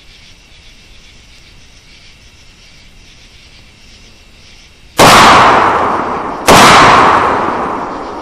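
Two rifle shots about a second and a half apart, fired at hogs. Each has a long fading echo.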